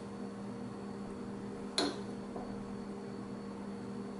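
Needle-nose pliers crimping the hooked leads of an LED and a resistor closed: one sharp click a little under two seconds in, then a much fainter tick, over a steady low hum.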